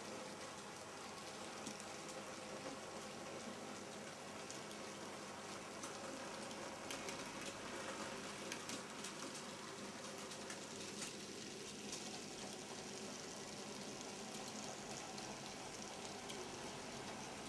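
Z scale model freight train rolling past on its track: a faint, steady rushing noise with scattered light clicks from the wheels on the rails.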